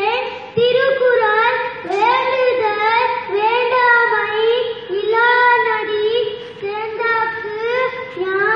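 A young child singing a song, phrase after phrase with short breaks between lines.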